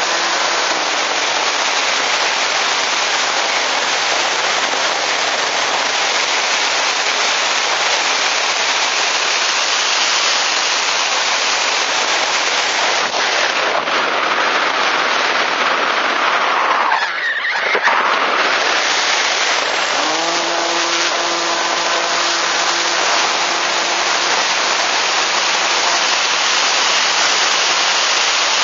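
Rush of wind over the onboard camera of a radio-controlled Easyglider electric motor glider in flight, with the faint hum of its electric motor. The motor hum fades out at the start and comes back with a short rising pitch about twenty seconds in, and the rush of air briefly sweeps in pitch a few seconds before that.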